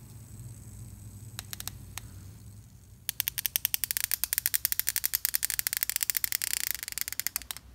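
Compressed air from an air hose blowing on a fidget spinner: a few faint clicks, then about three seconds in a loud, rapid, even chattering hiss that stops just before the end.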